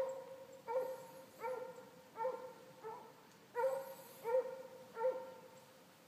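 Hunting hound baying over and over while trailing a fox's scent: short, full-voiced bays at a steady pitch, about one every three-quarters of a second.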